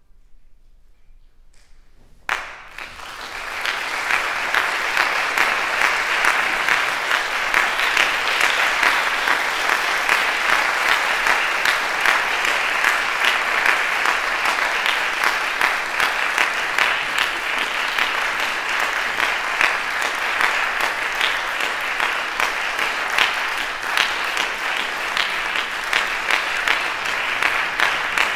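Audience applause. After about two seconds of quiet it breaks out suddenly, then goes on as dense, steady clapping.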